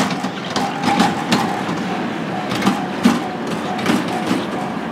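Japanese railway level-crossing warning bell ringing, a repeating clanging tone, signalling that a train is coming with the barriers down.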